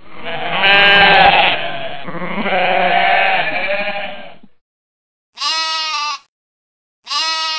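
Goats bleating: one long, wavering bleat lasting about four seconds, then two short bleats after a pause.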